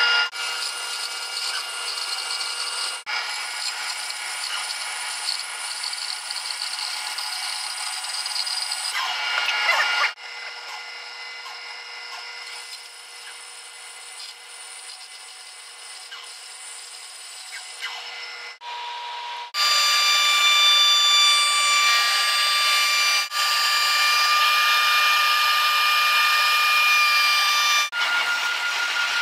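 Woodworking power tools cutting and shaping maple stock, heard as several separate shots that start and stop abruptly: a bandsaw cutting a curve, and stationary shop machines running with a steady high whine, loudest for most of the last ten seconds.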